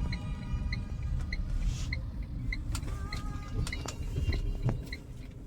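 A Tata Punch car on the move: a steady low road and engine rumble. Over it run a faint, even string of short high blips, about three a second, and a few sharp knocks in the second half.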